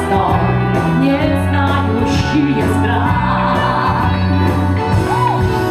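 Pop song with a steady, pulsing bass line and a woman singing over it into a microphone.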